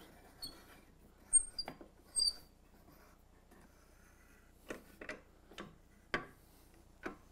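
Bar clamps being adjusted on a freshly glued wooden frame: a few short, high squeaks in the first couple of seconds, then five light clicks and taps of clamp and wood being handled.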